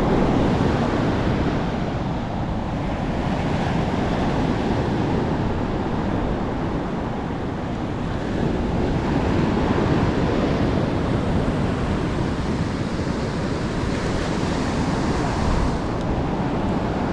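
Heavy ocean surf breaking and washing up the beach, a continuous rush that swells louder as waves break, with wind buffeting the microphone.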